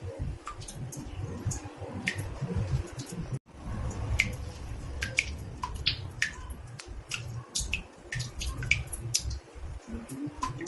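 Water drops falling into a bathtub, dripping irregularly several times a second with short pitched plinks, over a low rumble; the sound cuts out for an instant about a third of the way in.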